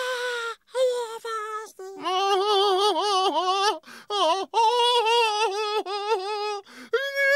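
Cartoon penguin character's high-pitched voice wailing in a series of drawn-out, wavering cries, with short breaks between them.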